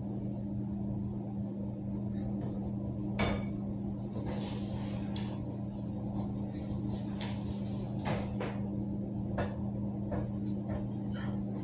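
Kitchen clatter: scattered knocks and clinks of pots, pans and utensils over a steady low hum.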